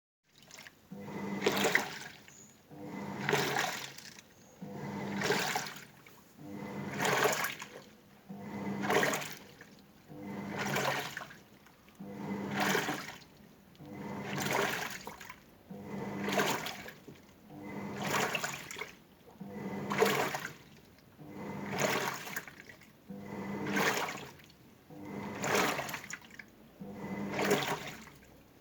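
Toshiba washing machine agitating a sudsy load: the motor drives the tub back and forth, and water and foam swish in a regular stroke about every two seconds, each stroke with a low motor hum.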